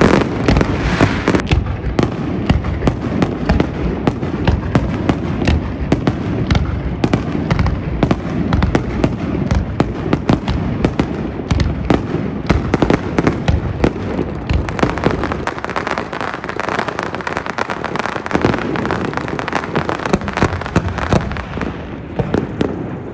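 Aerial fireworks display: a rapid, continuous barrage of bangs and crackling shell bursts over a deep rumble, easing slightly in density about two-thirds of the way through.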